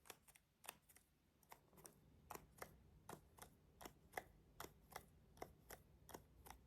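Faint, light clicks on a plastic toy barcode scanner as it is handled: a few scattered clicks at first, then an even run of about two to three a second.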